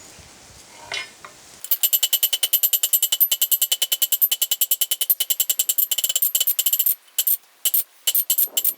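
Hammer striking hot rebar on a steel anvil in a rapid, even run of light blows, about seven or eight a second, with a bright ring on each strike. Near the end a few more scattered blows follow.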